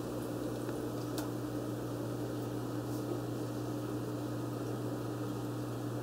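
Steady hum of an aquarium filter motor with a light hiss of water, and a few faint clicks.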